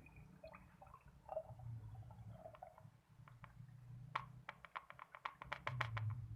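Boiled gotu kola leaf water being strained: faint soft liquid sounds, then from about four seconds in a quick run of sharp drips, about six a second.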